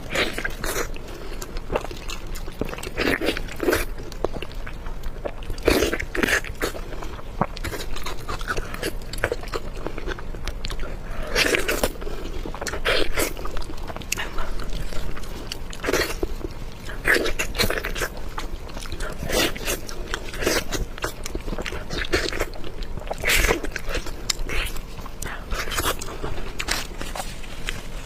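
Close-miked eating sounds: a person biting and chewing food, with irregular crunchy, smacking bites every second or so.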